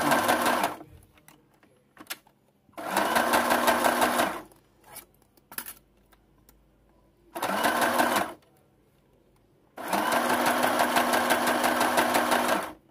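Electric sewing machine stitching in short runs. One run stops just after the start, then three more begin about 3, 7.5 and 10 seconds in. Each run speeds up at its start, keeps an even stitch rhythm and stops, and there are a few faint clicks in the pauses.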